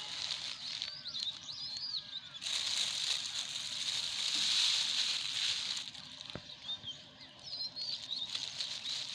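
Small birds chirping in short, quick calls. A louder rustling hiss runs for about three seconds in the middle.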